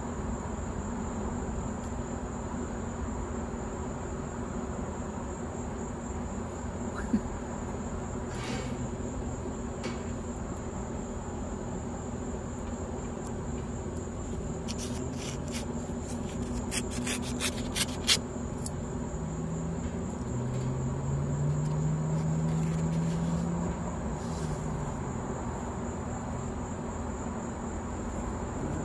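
Scissors snipping through a paper envelope, a quick run of sharp clicks about halfway through, with a single click or two before. Under it runs a steady high-pitched insect-like trill and a low hum, which rises and falls as a drone around two-thirds of the way in.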